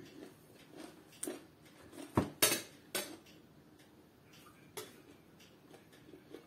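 A metal fork clinking against glass serving bowls in a few separate sharp clicks. The loudest two come close together about two seconds in.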